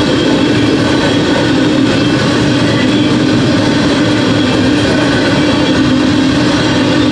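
Freight train of hopper cars rolling past, a steady, unbroken rumble of wheels on rail.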